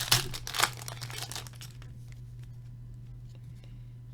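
Hockey card pack wrapper crinkling and tearing as it is opened, loudest in the first second or two, then a few light clicks of cards being handled.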